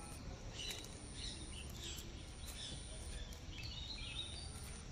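Quiet outdoor background with faint, scattered bird chirps and a very high insect buzz that starts and stops several times.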